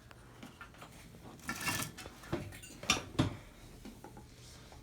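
Metal hand tools and hardware clinking: a short rattle about a second and a half in, then a few sharp separate clinks, the loudest two close together past the middle.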